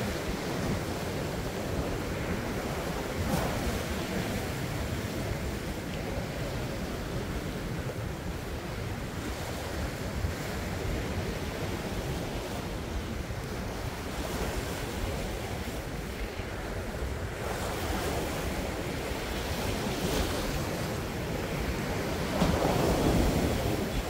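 Winter sea waves surging and breaking on a rocky shore, with wind buffeting the microphone. A wave crashes louder near the end.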